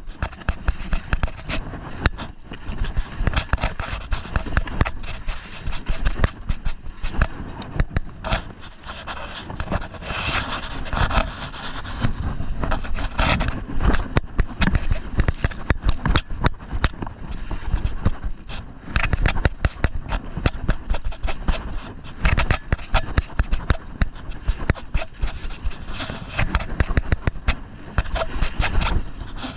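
Skis scraping and chattering over snow on a descent, with many sharp clicks and crackles, over a low rumble of wind on the microphone.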